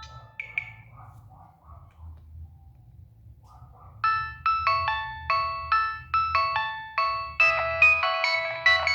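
Nokia 6585i polyphonic ringtones. One tone dies away in the first second. After a quiet gap, a new tune starts about four seconds in with short, plucked-sounding notes about twice a second, then fuller layered notes join near the end. A low hum runs underneath.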